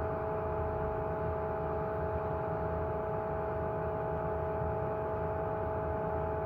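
Steady machine hum with a low rumble and several steady tones held throughout.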